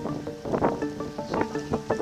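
Background music: an instrumental tune of short notes that change quickly in pitch, with sharp percussive strikes now and then.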